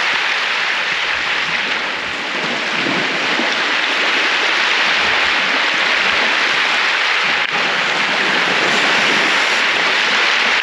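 Steady rushing noise of moving water, even and unbroken.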